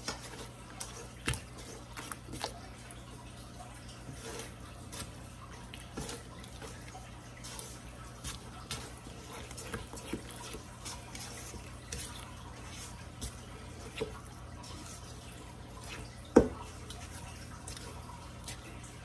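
Silicone spatula stirring thick chocolate batter in a stainless steel bowl: wet squelches and scrapes with irregular light clicks against the metal, and one sharper knock about 16 seconds in.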